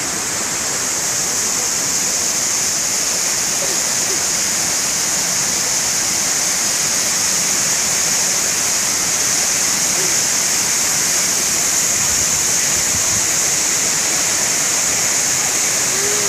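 Steady rush of a rocky mountain stream and waterfall, an even, unbroken noise with a strong high hiss.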